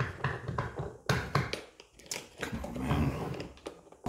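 Hard plastic toy parts being handled and pressed into place on a toy pirate ship: a few sharp clicks and knocks, with rubbing and handling noise between them.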